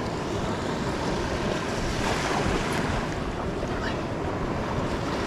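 Steady wash of surf on a beach, mixed with wind blowing across the microphone.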